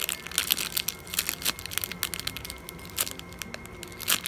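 Clear plastic bags around squishy toys crinkling and crackling in the hands, irregular rustles as the bagged toys are handled and turned over.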